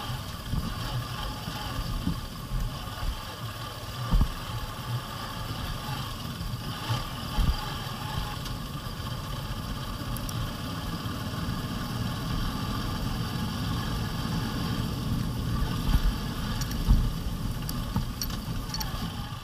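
Honda Livo 110 cc single-cylinder motorcycle engine running steadily while riding, with a few short thumps from the bike going over a broken road.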